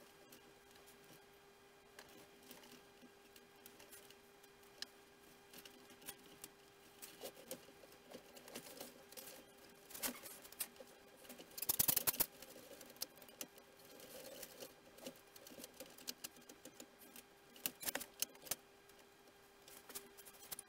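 Faint scattered clicks, taps and rustles of hands handling small parts and tools on a workbench, with a louder burst of rustling about twelve seconds in, over a faint steady hum.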